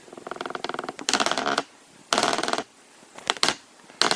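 Polymer gun-cleaning vise being handled, in several short bursts of rapid clicking and rattling with brief pauses between them.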